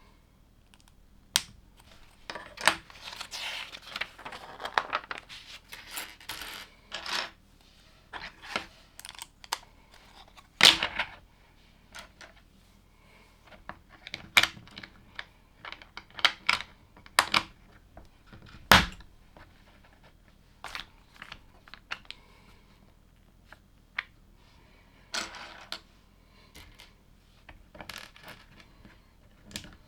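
LEGO plastic pieces clattering and clicking as they are handled and pressed together by hand: scattered sharp clicks, with a busier stretch of rummaging through loose pieces a few seconds in.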